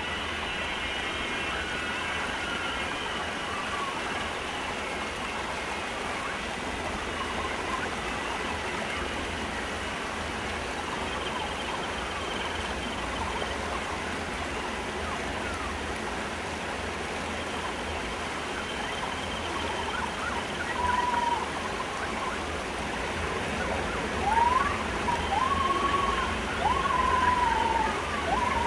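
Live experimental electronic music: a dense, hiss-like noise texture like rain or running water, with faint held tones above it. From about twenty seconds in, wavering, sliding siren-like tones come in and get louder.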